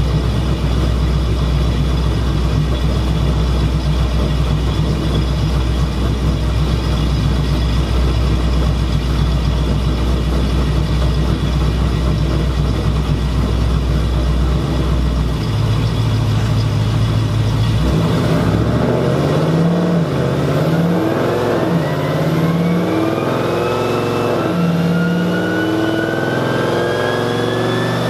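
Dodge Charger's V8 running at a steady idle on a chassis dynamometer, then picking up revs in gear about 15 seconds in. From about 18 seconds a whine climbs steadily in pitch as the engine and rollers gather speed.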